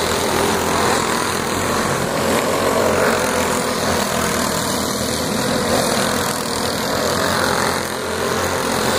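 Racing go-kart engines running on a dirt oval, their pitch rising and falling as the karts lap.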